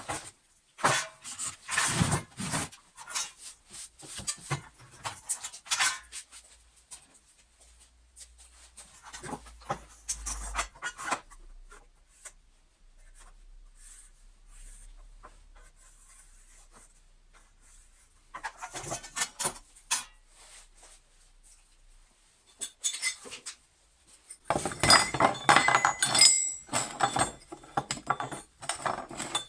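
Metal lamp parts and hand tools clinking and clattering as they are handled, in bursts of clicks and knocks with quieter gaps; the busiest clatter comes near the end.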